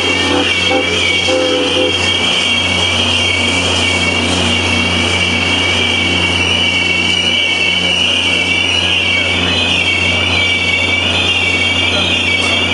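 Passenger train's steel wheels squealing against the rails as the train rounds a curve at slow speed: a loud, steady, high-pitched squeal in two close wavering pitches, over a low steady hum.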